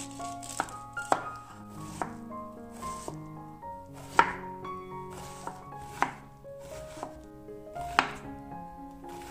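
Chef's knife cutting and dicing a red onion on a wooden cutting board: sharp knocks of the blade hitting the board at irregular intervals, a few of them much louder, over soft background music.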